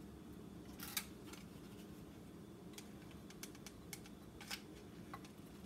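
Scattered light clicks and taps as a hot glue gun and craft materials are handled, with one sharper click about a second in and a run of lighter ones near the middle and end, over a low steady room hum.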